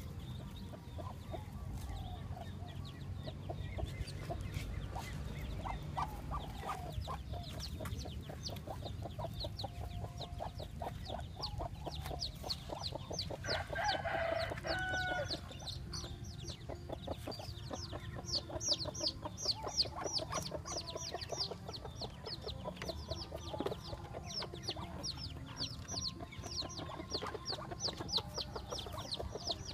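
A brood of Muscovy ducklings peeping: a stream of thin, high, falling peeps, several a second, that thickens after the first few seconds. Lower clucking calls from the adult fowl come in now and then, loudest about halfway through.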